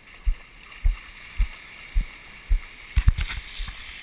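Footsteps through shallow wash on wet sand jolting a handheld camera: low thumps about twice a second, a quicker cluster about three seconds in, over a steady hiss of surf wash and wind.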